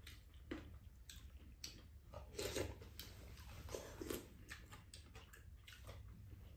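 Quiet eating sounds: chewing and mouth noises as two people eat a cabbage rice bowl, with scattered light clicks of spoons and chopsticks against ceramic bowls.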